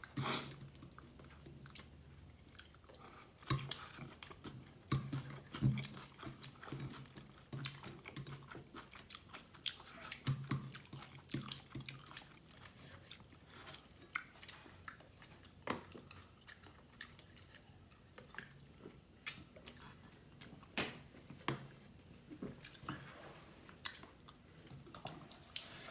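Close-miked chewing and biting of beef biryani (tehari) with egg korma: irregular wet mouth smacks and clicks.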